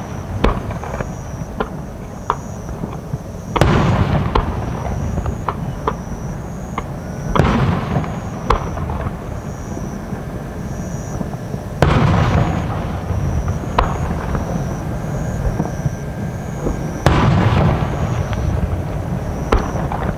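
Aerial fireworks shells bursting: four big bursts, roughly every four to five seconds, each trailing off over about a second, with sharper single cracks and pops in between.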